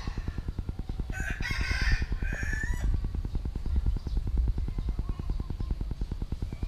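A rooster crowing once, about a second in and lasting about two seconds, its call rising in pitch at the end. Under it runs a steady, rapid low pulsing.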